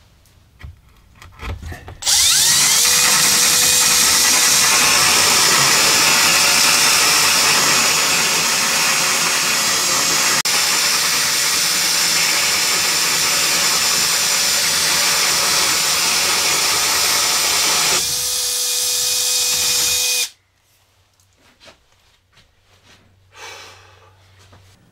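Cordless drill spinning a hole saw through 3/4-inch plywood. It starts about two seconds in and cuts steadily for about eighteen seconds, and the sound changes a couple of seconds before it stops abruptly.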